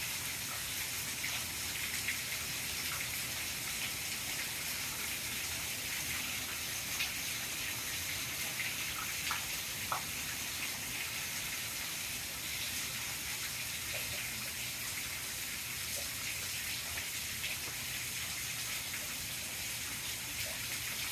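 Steady heavy rain falling, an even hiss with scattered drop ticks.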